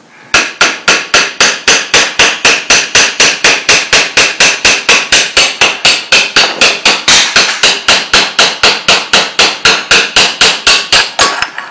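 A hammer striking the steel A2 front sight base of an AR-15 in steady, rapid blows, about four a second, knocking the loosened sight and gas block forward off the barrel.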